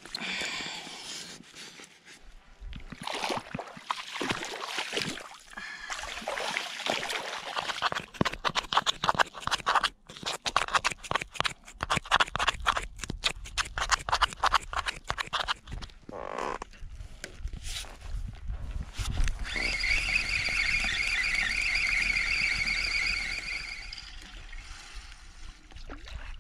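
A run of fishing-tackle handling sounds: water splashing around wading feet, then rapid clicking and rattling as groundbait is packed into a feeder with a plastic loading mould. About twenty seconds in comes a steady high wavering whine lasting about four seconds.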